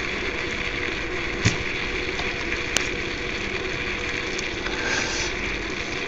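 Steady hiss of room noise with two faint clicks, about one and a half and nearly three seconds in, from hands handling the breadboard wiring.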